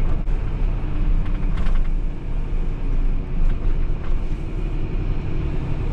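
Steady engine and road noise inside the cab of a Mitsubishi Fuso Super Great heavy diesel truck cruising on an expressway.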